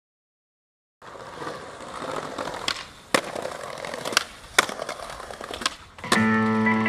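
Skateboard wheels rolling on concrete, with about six sharp clacks of the board's tail and wheels hitting the ground. About a second before the end, guitar music comes in. The first second is silent.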